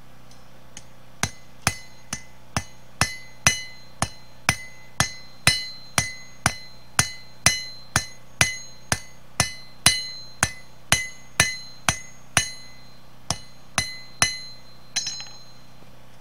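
Small flat-faced hand hammer striking hot spring steel from a hay rake tine on an anvil face, about two blows a second, each blow ringing: drawing out a long taper on the knife's tang. The hammering starts about a second in and stops shortly before the end, with a few light taps at the close.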